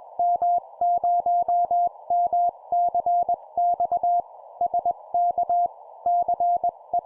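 Morse code sent at 20 words per minute: a single steady tone keyed on and off in dots and dashes over a steady hiss, in the manner of an amateur-radio CW contact heard on a receiver, with faint clicks where the tone starts and stops.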